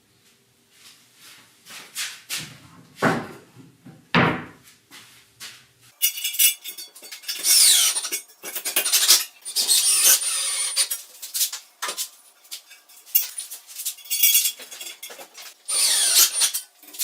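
A few clinks and knocks of hand tools or metal pieces being handled, then, from about six seconds in, repeated rasping strokes of a hand tool scraping against a workpiece.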